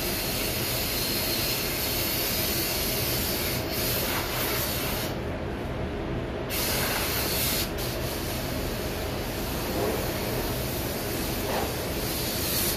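Compressed-air blow gun hissing in long blasts as a car panel is blown off and wiped with a tack cloth before painting. The hiss cuts out for about a second and a half about five seconds in, and again briefly near eight seconds, over the steady low rumble of the spray booth's ventilation.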